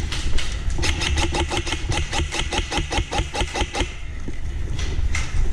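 Airsoft electric gun firing on full auto: a long burst of rapid, evenly spaced shots with the gearbox motor whirring under them. A second burst starts near the end.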